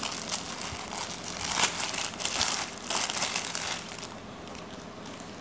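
Clear plastic bag crinkling and rustling as a reel pouch is unwrapped by hand, in irregular bursts that stop about four seconds in.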